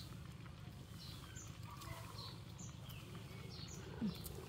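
Quiet outdoor background: steady low noise with scattered short bird chirps, and one brief low sliding sound about four seconds in.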